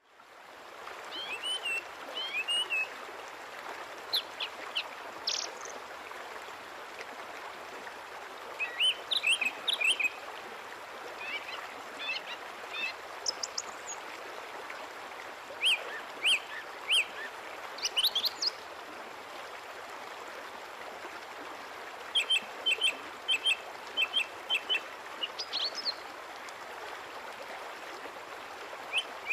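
Small birds chirping in short, high, quick groups of calls, with pauses of a few seconds between the groups, over a steady outdoor background hiss.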